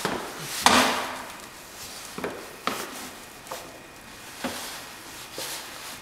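Washing machine on a hand truck knocking and bumping as it is wheeled through a doorway: a series of irregular wooden-sounding knocks and thuds, the loudest about a second in.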